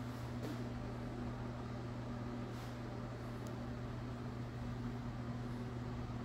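Steady low machine hum with an even hiss underneath, unchanging throughout, with a few faint soft ticks.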